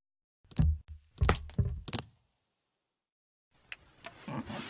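A quick run of about six knocking thumps within a second and a half: a cartoon pig clambering down off a box to the floor. Near the end a steady whirring noise starts up.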